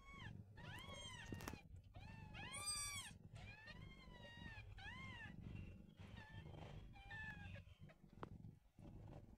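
Newborn kittens mewing: a run of short, thin, high-pitched cries, each rising and falling, several to the second, loudest about three seconds in and growing fainter after about five seconds.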